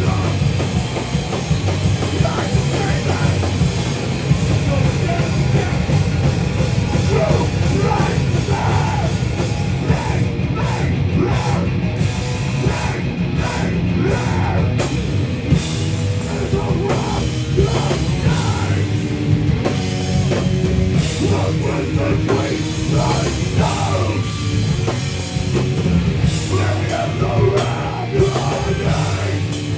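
Live heavy rock band playing loud and dense, with a drum kit pounding under heavy guitars and bass.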